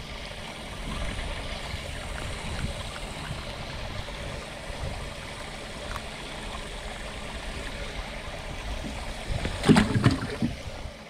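Water gurgling and lapping against the hull of a small anchored boat, with wind on the microphone. A brief cluster of louder knocks and handling sounds comes about nine to ten seconds in.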